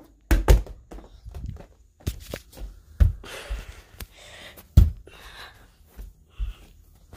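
A series of dull thuds and knocks, the loudest about half a second, three seconds and five seconds in, as a plastic traffic cone is flipped and lands or topples on carpet, with rustling handling noise between them.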